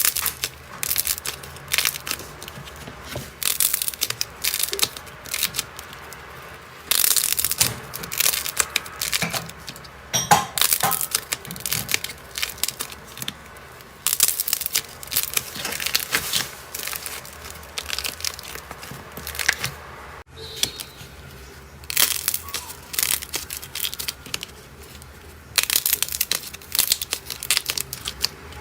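Slime being squeezed and pressed by hand, in repeated bursts of crackling, crunching pops about a second long each, with a brief break about twenty seconds in.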